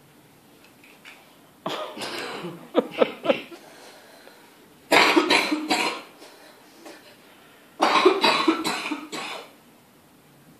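Three bouts of harsh, hacking coughs, each a second or two long and made of several quick coughs, a few seconds apart.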